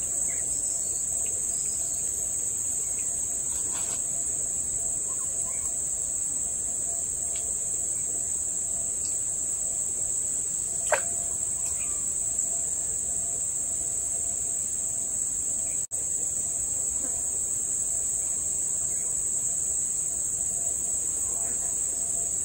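Insect chorus droning steadily at a high pitch, with one short sharp tick about halfway through.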